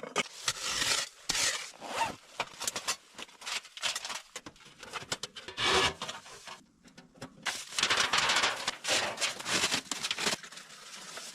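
Repeated scraping and rubbing strokes, as of a utensil or blade working against wood during food preparation. They come in dense runs, with a short pause about seven seconds in.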